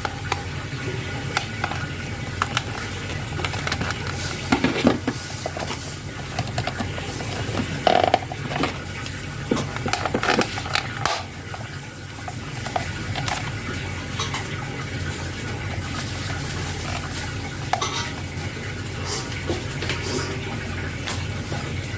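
Irregular small clicks, taps and scraping of hard plastic parts and tools being handled, over a steady low hum and hiss. The handling is busiest a few seconds in and again around the middle.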